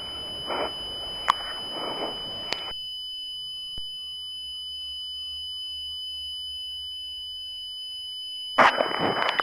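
A steady, high-pitched electronic tone holds unchanged throughout. Near the end a voice starts speaking over it.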